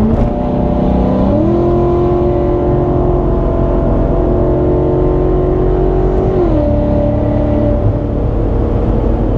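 BMW F90 M5 Competition's twin-turbo V8 running under way. Its note steps up in pitch about a second and a half in, holds steady, and steps back down about six and a half seconds in.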